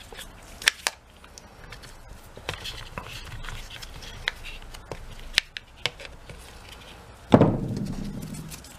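Plastic parts of an angle grinder's clamshell housing clicking and tapping as they are handled and fitted together, with one louder thump and rustle about seven seconds in.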